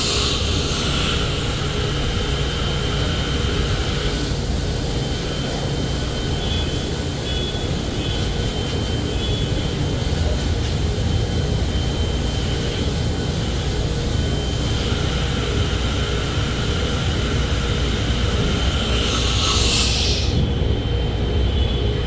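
Mazak HCN 8800-II horizontal machining center running, a steady machine noise with a deep rumble and a thin high tone. A loud hiss dies away about a second in and comes back briefly near the end.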